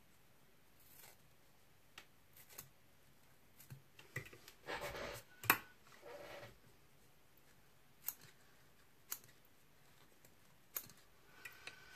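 Curved scissors snipping spun deer hair on a fly's head: a scattered run of soft snips and clicks, busiest between about four and six and a half seconds in, then single clicks now and then.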